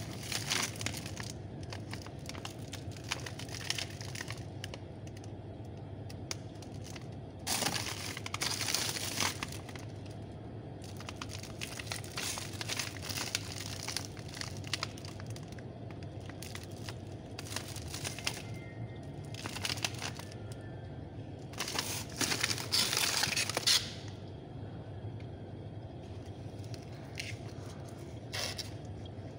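Clear plastic bags of vacuum-packed frozen fish crinkling and rustling as they are handled. The rustling comes in irregular bursts, loudest a quarter of the way in and again about three quarters through, over a steady low hum.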